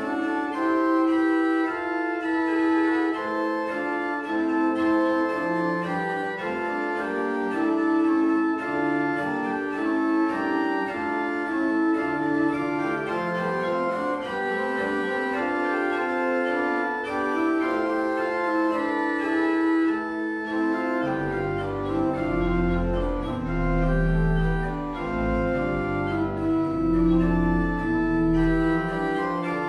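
Pipe organ, a Ponzani copy of Ennio Bonifazi's 1638 Roman organ, playing a four-voice canzona on its principal and octave stops, several sustained lines moving together. Deep bass notes join about two-thirds of the way through.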